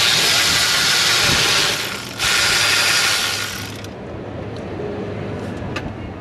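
A power ratchet spinning out the EGR valve mounting bolts on a Ford 6.7 Power Stroke diesel, in two loud runs of about two seconds and a second and a half with a short pause between.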